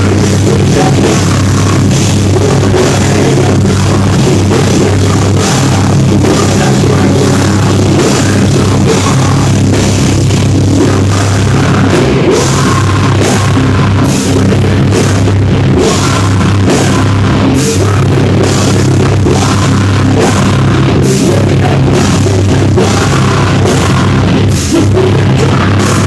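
Metal/hardcore band playing live at full volume: a pounding drum kit under a dense, heavy wall of guitar and bass, with no break in the music.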